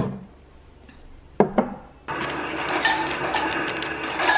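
Ceramic mug knocking against a kitchen cabinet shelf as it is taken out: one sharp knock, then two quick knocks about a second and a half in. From about two seconds in, a steady rushing noise follows.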